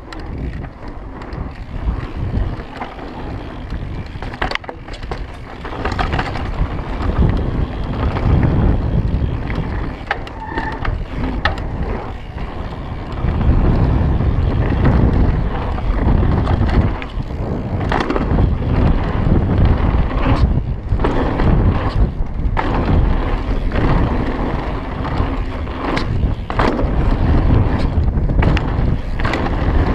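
Mountain bike riding down a dirt trail: tyres rolling over packed earth and wind buffeting the camera microphone, with sharp knocks and rattles from the bike over bumps. The rumble grows louder about halfway through as the bike gathers speed.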